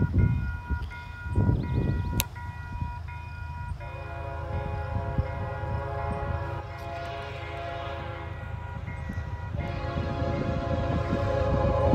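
Grade-crossing warning bell ringing in even pulses, then the horn of an approaching CPKC freight locomotive sounding one long blast about four seconds in and a second long blast near the end. Gusty low rumble of wind on the microphone, strongest in the first couple of seconds.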